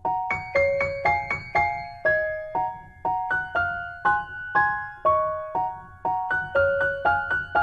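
Background music: a gentle piano melody of evenly paced struck notes, about two to three a second, over a soft low beat.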